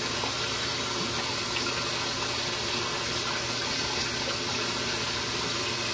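Water running steadily from a tap into a sink, soaking a shaving brush.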